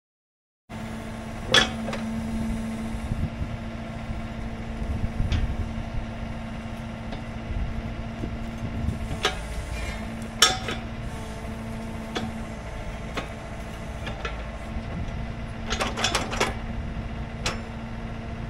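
Excavator engine running steadily with a constant hum, cutting in abruptly after a brief silence. Over it come sharp metal clanks, the loudest about a second and a half in and about ten seconds in, with a quick cluster near the end, as the excavator's quick coupler picks up and seats onto a steel ripper attachment.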